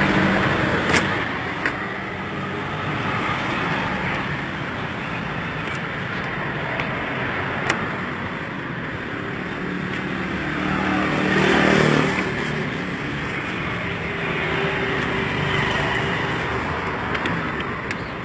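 Road traffic going by, with one vehicle passing close and loud about eleven or twelve seconds in, and a few sharp clicks.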